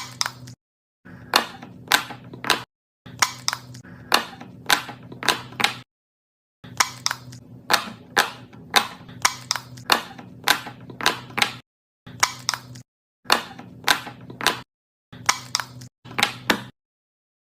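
Fidget toys being pressed and popped: a run of sharp pops and clicks, a few at a time, in short stretches broken by brief silences, over a low steady hum.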